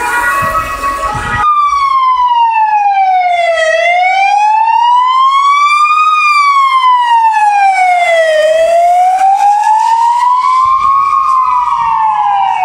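Emergency-vehicle siren on a responding car, loud and close. About a second and a half in it changes from a stepped multi-tone pattern to a slow wail that sweeps down and back up in pitch about every four to five seconds.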